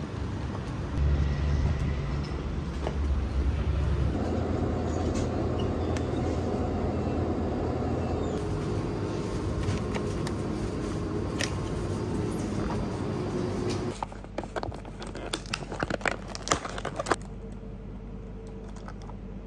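Street traffic ambience and a steady shop hum, then from about two-thirds of the way in a run of sharp crinkles and clicks from plastic food packaging being handled.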